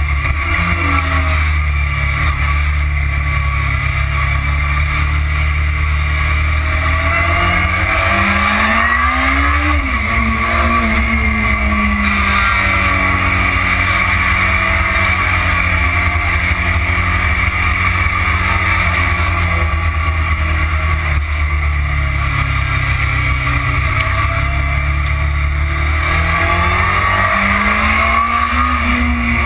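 Motorcycle engine running at speed on a track, heard from a camera mounted on the bike, mixed with steady wind rush. The revs climb about eight seconds in and again near the end, then drop back between.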